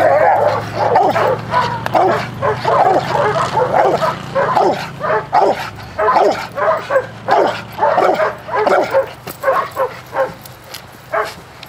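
Large black dog barking repeatedly and excitedly in bite-work training, driving at a handler's bite sleeve. The barks come one to two a second and taper off near the end.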